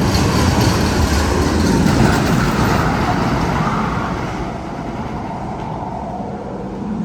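Loud rushing rumble in the Magnum XL 200 roller coaster's tunnel, swelling to a peak about two seconds in and fading away over the second half.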